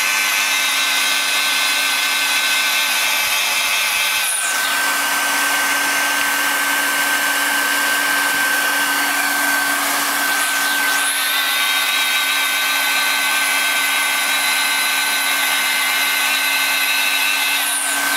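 LST600B handheld plastic extrusion welder running steadily, its drive motor and hot-air blower making a constant whine that wavers briefly twice.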